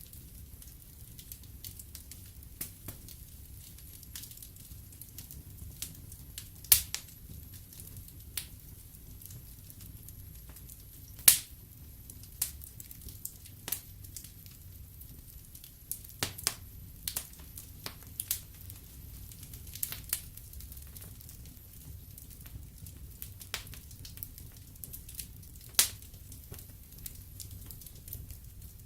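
Wood fire burning in a fireplace: a low steady rumble with scattered sharp crackles and pops, the loudest about 7, 11 and 26 seconds in.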